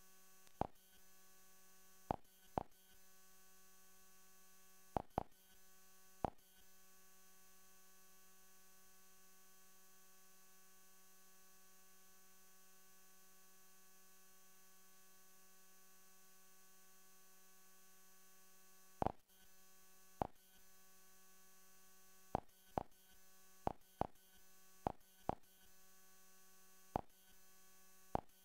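Sharp single clicks as menus are navigated: a handful in the first six seconds, none for a long stretch, then about ten in quick succession from about nineteen seconds in. Under them runs a steady electrical hum with a buzzy tone.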